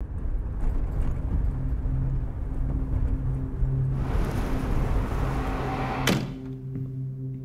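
Low rumble of a car's cabin as it drives, swelling into a rushing whoosh about four seconds in and cut off by a single sharp slam about six seconds in. After the slam a steady ringing hum begins, like a singing bowl.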